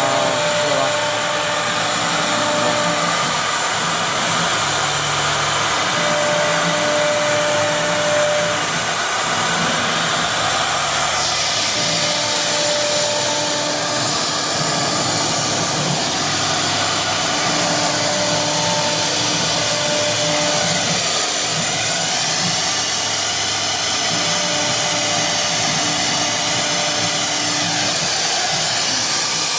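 CNC router running: a steady rushing noise from the spindle, with motor tones that start and stop every second or two as the axes move. About 11 seconds in, the high hiss grows brighter.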